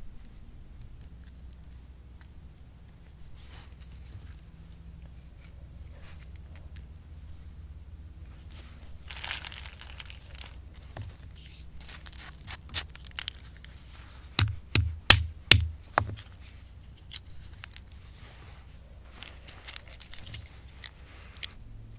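Acorns being cracked with a hand stone in a granite bedrock mortar hole and their shells picked apart by hand: dry shell crackling, crunching and scraping, with a quick run of about five sharp knocks about two-thirds of the way through.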